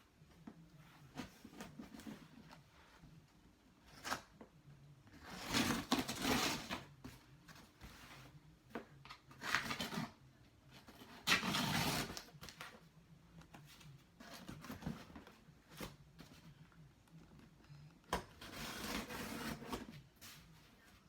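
A shipping package being opened by hand: four bursts of rustling, about a second each, with scattered small knocks and clicks in between.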